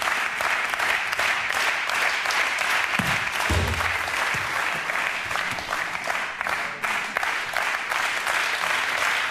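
Studio audience applauding steadily, with a low thump about three and a half seconds in.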